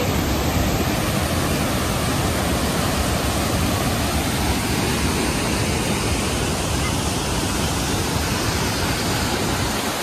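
Giessbach Falls, a large mountain waterfall running high after heavy rain: a steady, loud rush of falling water over rocks.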